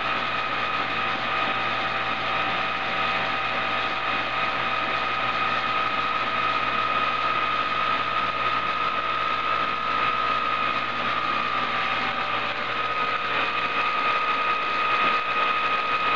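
Car alternator converted into an electric motor, running at speed and spinning a bicycle's raised rear wheel with no load, through a toothed belt pulley reduction and a chain. A steady high whine over an even mechanical running noise, holding constant throughout.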